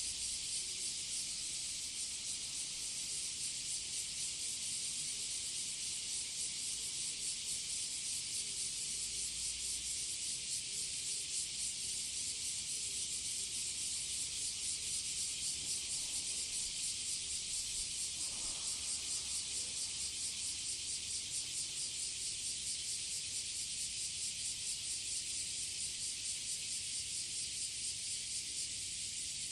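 Cicadas singing in a dense, steady chorus: a continuous high buzz with a fast, even pulsing.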